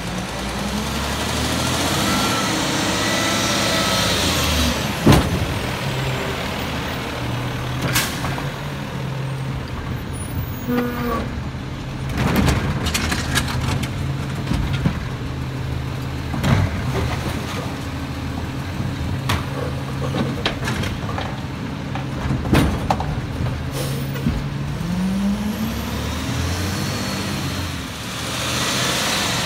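Peterbilt 320 garbage truck with a McNeilus automated arm: the diesel engine runs and the air brakes hiss as it pulls up, then it idles steadily while the arm lifts and dumps a cart with a series of sharp clanks and bangs. Near the end the engine note rises again as the truck pulls away.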